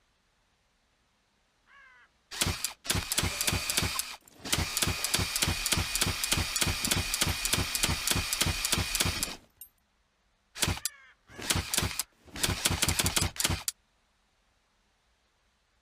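Automatic crossbow sound effect: a rapid run of sharp mechanical clacks, about four a second, lasting several seconds, followed by three shorter bursts.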